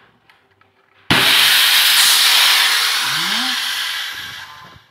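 Compressed air from an air gun venting in one loud hiss that starts abruptly about a second in and fades away over some three and a half seconds.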